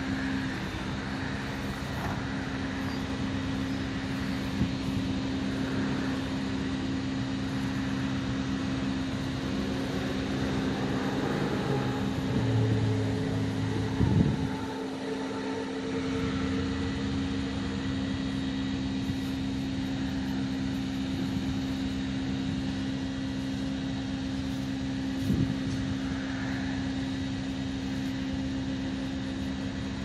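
Steady low mechanical hum, with a brief knock about halfway through and a fainter one later.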